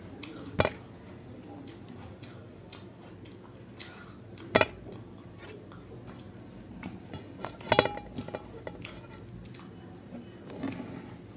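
Fingers working rice on a stainless steel plate, with three sharp metallic clinks a few seconds apart as the hand knocks against the plate, and faint small ticks between them.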